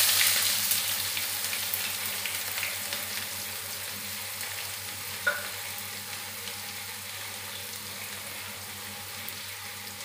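Chopped onion sizzling in hot tempering oil in a kadhai: a loud hiss the moment it goes in, slowly settling to a steady fry. A brief click about five seconds in.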